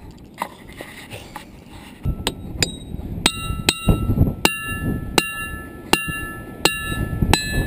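Diabase boulder struck repeatedly with a hammer, ringing like a bell. A few light taps come first, then from about two seconds in a steady run of strikes a little under a second apart, each leaving a clear high ringing tone that hangs on.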